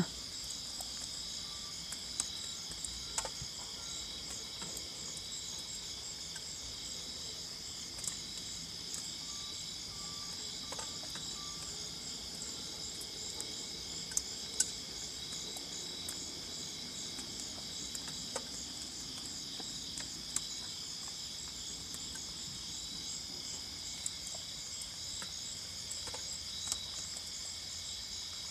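Steady high-pitched chorus of night insects trilling, with a fast pulsing texture. Two faint short steady tones sound briefly, about two seconds in and again about ten seconds in, and a few sharp ticks come through.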